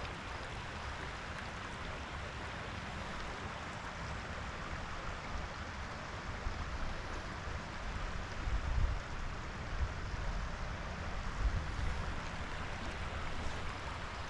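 Steady rush of flowing river water, with an uneven low rumble that grows stronger and gustier in the second half.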